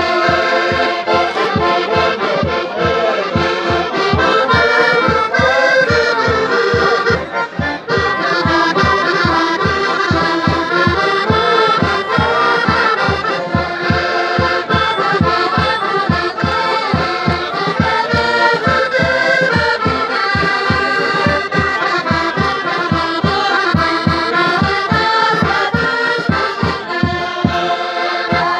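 Portuguese folk group singing a traditional song in chorus to accordion, with a bass drum beating an even rhythm of about two to three strokes a second and tambourine and scraper adding to the beat.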